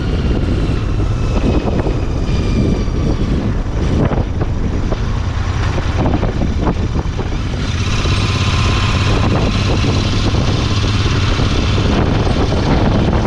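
Royal Enfield Interceptor 650's parallel-twin engine running steadily under way, with wind rushing over the rider, picked up by a body-worn recorder. The wind noise grows stronger about eight seconds in.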